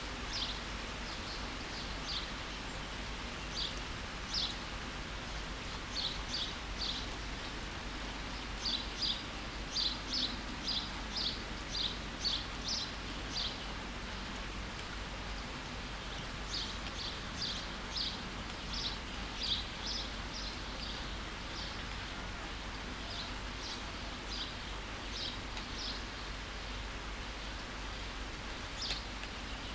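Steady rain hiss with a songbird chirping: short high chirps in loose runs, densest in quick series of about two a second in the middle of the stretch.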